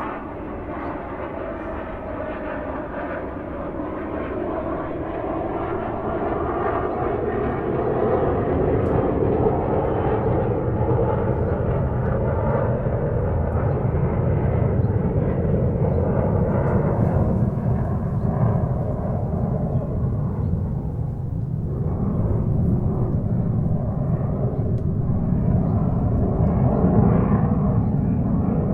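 Airliner cabin noise heard from a window seat: a steady rush of air and engine drone that grows louder over the first several seconds, then holds. A few faint tones glide slowly downward in the first dozen seconds.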